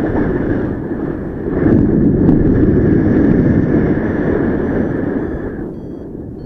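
Wind buffeting the microphone during a paraglider flight, a loud rushing that swells about a second and a half in and eases off near the end.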